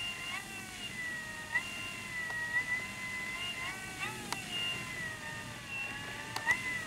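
Electric brushless motor and propeller of a 6S E-flite Carbon-Z T-28 Trojan RC plane at low throttle while taxiing: a whine that rises and falls in pitch as the throttle changes, with a few sharp clicks.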